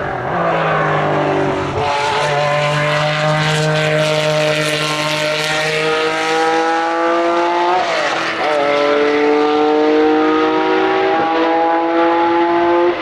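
Racing car engine under hard acceleration: its note falls for the first couple of seconds, then climbs steadily through the revs, with an upshift about eight seconds in and another at the very end.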